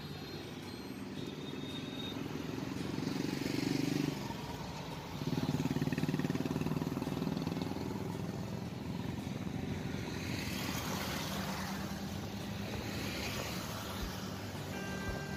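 Road traffic heard from a moving vehicle: a steady engine hum that swells twice in the first half, dropping off sharply about four seconds in, then motorcycles and cars passing with a rushing noise twice near the end.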